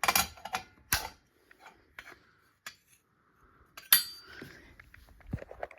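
Sharp metallic clicks and clanks from a fire alarm pull station, a rebranded RSG T-bar, being handled: the loudest at the start, about a second in and about four seconds in, with lighter taps between.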